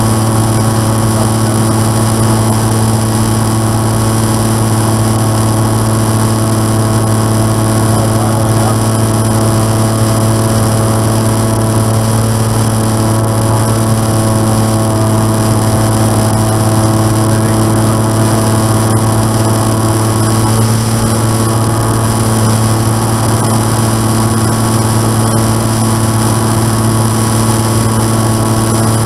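Light aircraft's piston engine running steadily with an even, unchanging drone: the engine noise being checked after its fuel-injection spider was replaced.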